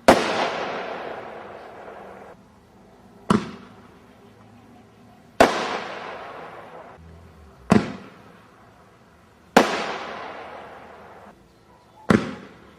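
1.5-inch single-shot firework shells going off one after another: six sharp bangs in about twelve seconds, alternating between short reports and louder bangs that trail off in a fading rush for about two seconds, consistent with each launch being followed about two seconds later by its shell bursting.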